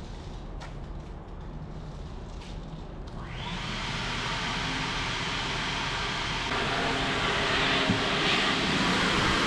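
A vacuum cleaner switched on about three seconds in: its rushing motor-and-air noise builds up and then runs steadily, getting louder again a little past two-thirds of the way. Underneath is a low steady rumble.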